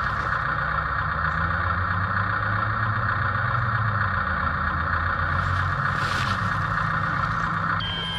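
Double E 579 RC bulldozer running under remote control: its drive motors and gearboxes give a loud, steady whine over a low hum. The whine cuts off suddenly near the end, where a short thin tone sounds.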